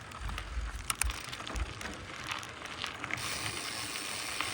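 Mountain bike rolling along a dirt trail: tyre noise with scattered clicks and rattles from the bike, and a few low thumps in the first second and a half. The hiss brightens about three seconds in.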